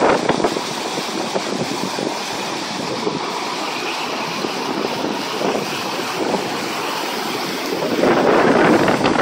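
Steady rushing of high floodwater mixed with wind buffeting the microphone, growing louder about eight seconds in.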